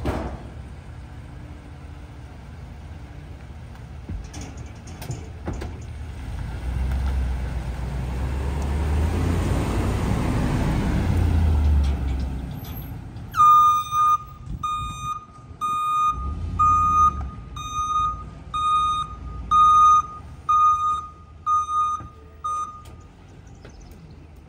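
Small split-body Ford garbage truck driving off, its engine rising for several seconds and then easing, followed by its backup alarm beeping at one high pitch, about a dozen even beeps roughly three every two seconds, as it reverses.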